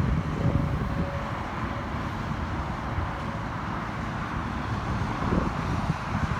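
Wind buffeting the phone's microphone over the steady drone of a Case IH Puma 160 tractor working a round baler in the field.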